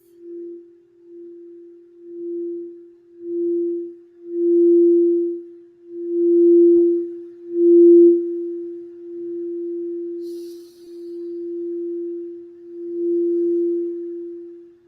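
A singing bowl sounding one steady tone that swells and fades in waves about once a second, growing louder until about eight seconds in, then held evenly.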